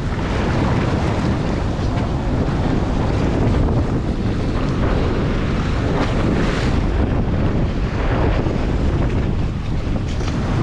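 Strong wind rumbling on the microphone over choppy sea water rushing around a boat's hull, with the boat's engine running underneath.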